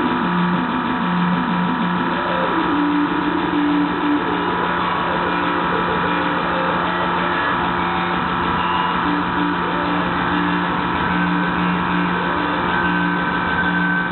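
Live industrial noise music played over a club PA: a loud, dense, machine-like drone of several sustained low and mid tones, some of them pulsing on and off, with a steady noisy wash underneath. It sounds dull and lacks its top end, as heard through a camera microphone.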